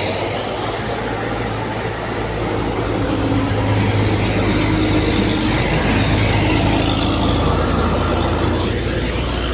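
A large bus engine running steadily as it climbs an incline, giving a low drone with road noise, and a high rising whine right at the start.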